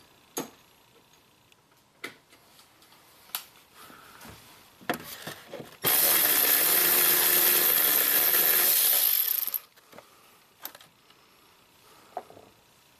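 Red cordless electric ratchet running steadily for about three and a half seconds on a sensor's mounting bolt, starting about six seconds in. Scattered sharp clicks and knocks of the socket and tools come before and after it.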